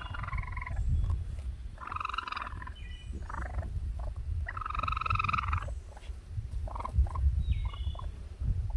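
Raccoon kits calling with buzzy, trilling chitters: three longer trills a couple of seconds apart and shorter chirps in between, over a steady low rumble.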